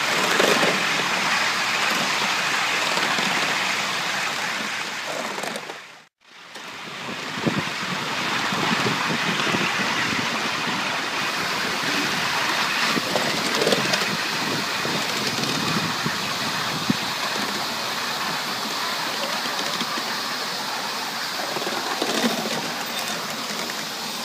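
A 5-inch gauge live steam model locomotive of an LNER Peppercorn A1 hissing steadily as steam escapes, with a few light clicks. The hiss drops away briefly about six seconds in, then resumes.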